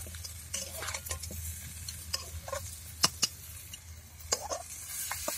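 Metal spatula stirring and scraping a thick curry in a steel wok, with irregular sharp metal-on-metal clinks over a light sizzle; the curry is done and being finished off the fire.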